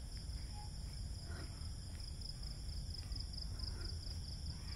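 Steady chorus of night insects, a continuous high trill that pulses slightly, over a low rumble of handling noise from walking with the camera.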